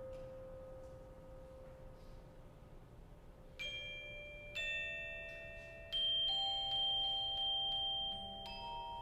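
Sparse notes from metal mallet percussion, struck one at a time from about three and a half seconds in and each left to ring on, overlapping into a bell-like cluster. Before them a soft held note slowly fades.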